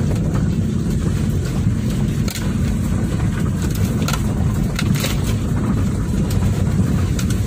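Car driving slowly over a rough, wet dirt track, heard inside the cabin: a steady low engine and tyre rumble, with a few short knocks and scrapes as the car jolts over the ruts and roadside bushes brush against it.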